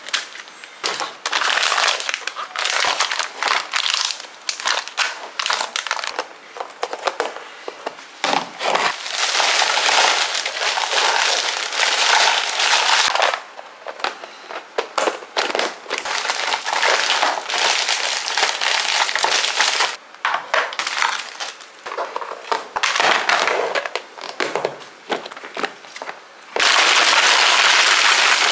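Plastic food bags and packaging crinkling and rustling as they are handled, in irregular bursts with short pauses, louder and steadier near the end.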